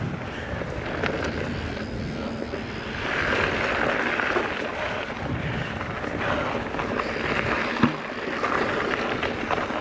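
Mountain bike riding on a dirt trail: steady tyre and wind noise on the microphone with scattered clicks and rattles from the bike, and a sharp knock about eight seconds in.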